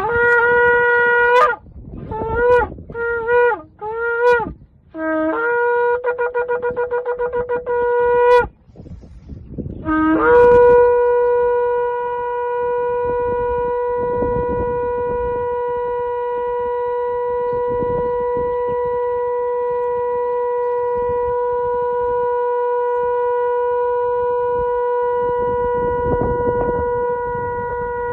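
Ram's-horn shofar blown in the traditional calls: a short tekiah blast, three broken shevarim blasts, a rapid staccato teruah, then, from about ten seconds in, a very long steady tekiah gedolah that is still held at the end.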